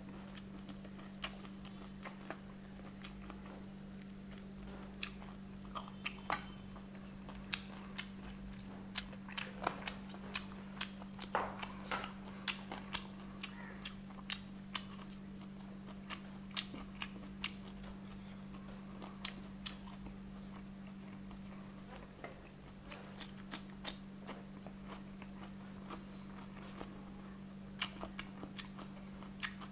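Close-miked eating of crispy fried chicken legs: irregular crunches and crackles of the crust between bites, with chewing. A steady low hum sits underneath.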